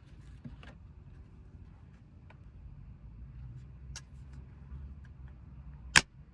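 Faint clicks and knocks of utensils and containers being handled over a low steady hum, then one sharp click near the end.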